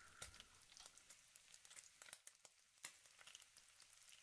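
Faint, scattered crackling of chicken pieces frying in oil in a wok, close to near silence.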